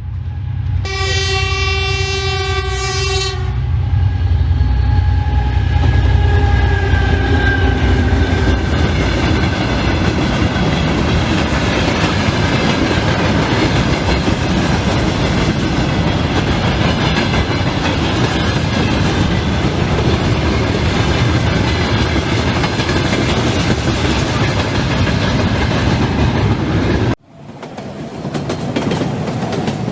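Train horn sounds one long blast, then a train runs by with a loud, heavy rumble and wheel clatter on the rails. The sound cuts off abruptly near the end and another stretch of train rumble fades in.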